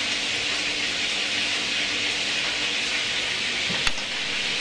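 Steady hiss of a professional kitchen's background noise, with a faint low hum under it and one short click near the end.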